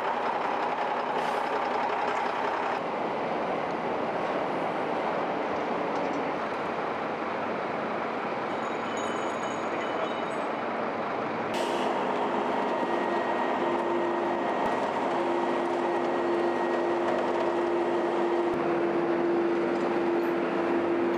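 Heavy diesel trucks' engines running at a standstill, a dense steady mechanical noise. About halfway through the sound changes and a steady droning tone comes in and holds.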